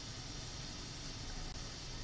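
Steady hiss with a low rumble underneath, even throughout, with no distinct knocks or voices.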